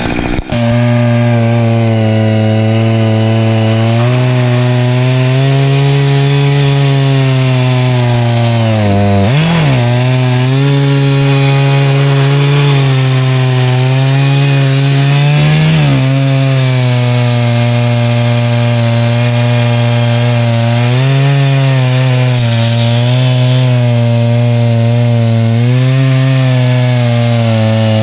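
Echo CS-590 Timberwolf two-stroke chainsaw running at high revs under load, ripping cedar lengthwise in a chainsaw mill with a ripping chain. The engine pitch wavers with the load and dips briefly twice partway through.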